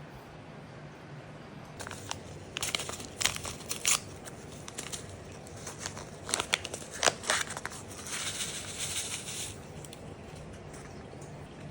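Objects being handled at close range: a scattering of sharp clicks and crinkling rustles, with a denser rustle lasting about a second and a half near eight seconds in.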